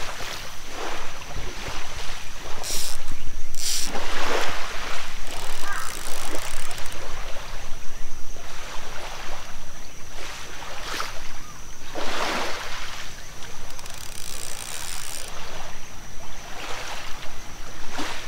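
Lake water lapping and sloshing around wading legs, with wind rumbling on the microphone. There are a few sharp clicks and two louder swishes, about four and twelve seconds in.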